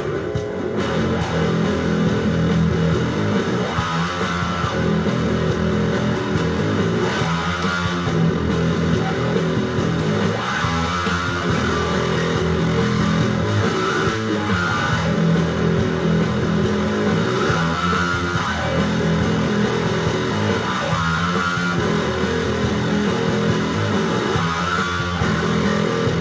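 Instrumental rock music: strummed electric guitar over bass guitar, with a phrase that repeats about every three and a half seconds.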